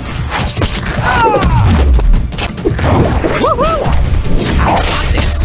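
Fight sound effects: a rapid string of hits, thuds and crashes over background music, with a falling swoosh-like tone about a second in and two short swooping tones about three and a half seconds in.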